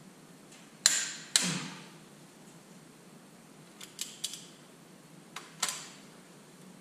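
Sharp metallic clicks from a torque wrench on the cylinder-head bolts of a Detroit Diesel 3-53T as the head is torqued down: two loud clicks with a short ring about a second in, a few lighter clicks around four seconds, and two more a little later.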